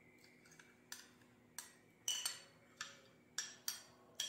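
A metal spoon clinking and tapping against bowls as thick mayonnaise is scooped and knocked off into a glass mixing bowl, about eight sharp clinks at an uneven pace.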